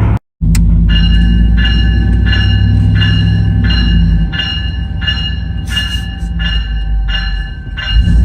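Graham White E-Bell, an electronic locomotive bell, ringing steadily about twice a second, over the low drone of the pickup's engine and road noise. The drone eases off about halfway through.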